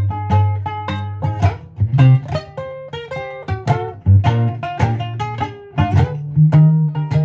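Instrumental music: a ukulele picked note by note in a steady run of plucks over low, held bass notes.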